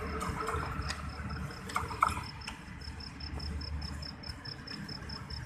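Low rumble of a passenger train's coaches fading as the train rolls away, with one sharp knock about two seconds in. Over it, an insect chirps steadily in short high-pitched pulses, about five a second.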